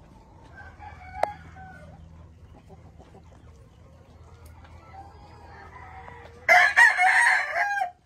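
A rooster crows once near the end, loud and about a second and a half long. Fainter chicken calls come earlier, over a low steady hum.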